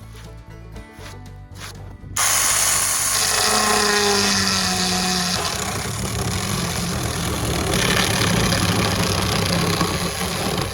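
Cordless electric mini chainsaw starting about two seconds in and cutting steadily through a brooder box, then stopping near the end. Background music plays under it.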